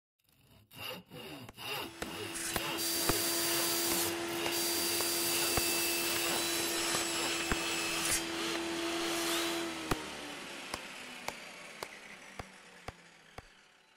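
Woodworking noise: a tool runs with a steady hum over rubbing, sawing-like noise on wood, with scattered sharp knocks. The hum stops about ten seconds in and the noise fades away, leaving light ticks about twice a second.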